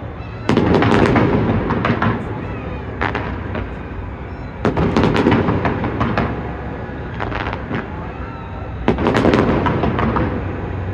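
Fireworks display going off, a dense run of sharp cracks and deep booms. The heaviest volleys come about half a second in, just before five seconds and about nine seconds in.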